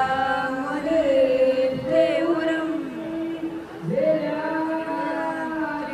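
A voice singing or chanting long held notes that glide between pitches, with music, in a devotional, chant-like style.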